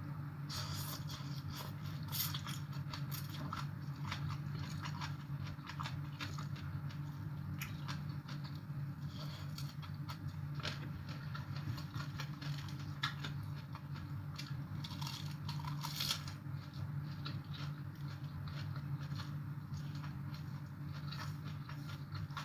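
A person chewing crunchy papaya salad and raw vegetables close to the microphone: irregular crunches and wet mouth clicks, over a steady low hum.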